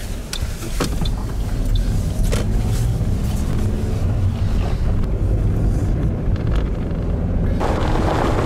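Engine and road noise inside a small Toyota car's cabin while driving: a steady low hum with a few faint clicks. About seven and a half seconds in it jumps to louder, rougher tyre and road noise.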